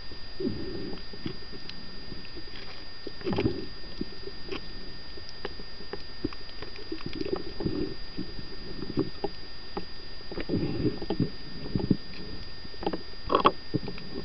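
Underwater recording of a scuba diver's regulator exhaust bubbling out in rumbling bursts every few seconds, the loudest near the end. Scattered sharp clicks and a thin steady high tone run underneath.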